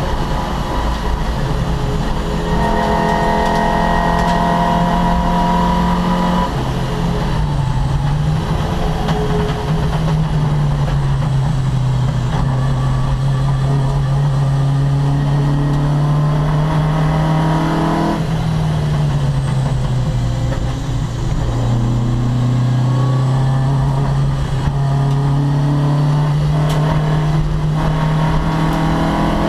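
Opel Kadett C race car's four-cylinder engine pulling hard at high revs, held at a steady pitch for long stretches. The pitch drops sharply about seven and eighteen seconds in, as on a lift or gear change, then steadies again.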